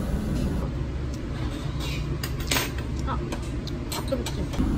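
Restaurant room noise: a steady low hum with indistinct background voices, and a few short clicks of tableware as someone eats noodle soup with chopsticks from a bowl.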